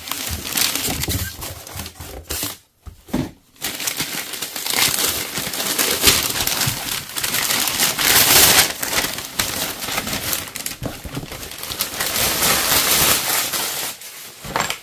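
Packaging being crinkled, crushed and rustled by hand as an item is unwrapped, with a short pause about three seconds in.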